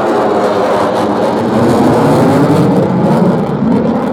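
F-35A Lightning II's single Pratt & Whitney F135 afterburning turbofan engine as the jet flies past: a loud, steady jet noise with a slowly shifting tone, a little louder about two seconds in.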